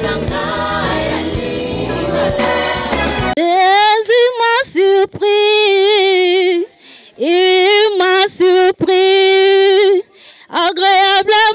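Band music with singing that cuts off suddenly about three seconds in, followed by a woman singing alone without accompaniment, holding long notes with short breaks between phrases.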